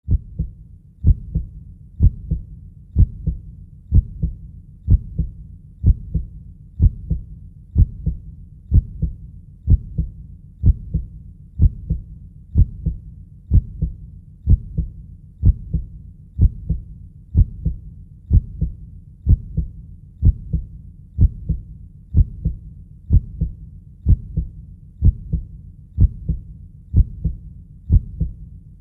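Heartbeat sound, a steady, deep lub-dub at about one beat a second, played as a womb-like soothing sound for babies.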